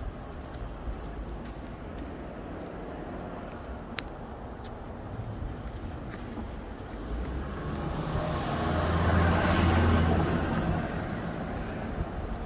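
A motor vehicle passes by, its engine hum and tyre noise swelling up and fading away, loudest about three-quarters of the way through, over steady outdoor background noise. A single sharp click sounds about four seconds in.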